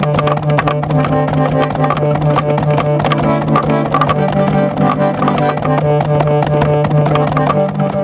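A hand-cranked roller organ from about 1910 plays a chorded tune as its handle is turned, the pinned wooden roll working the organ's valves. A steady low held tone sounds under the melody, with quick clicks throughout.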